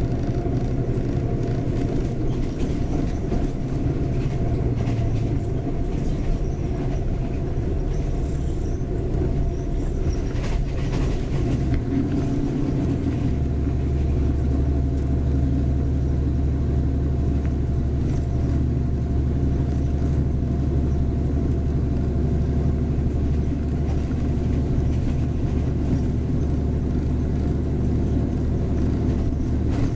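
Steady rumble of a train in motion, heard from inside a carriage, with a deeper low hum setting in about thirteen seconds in.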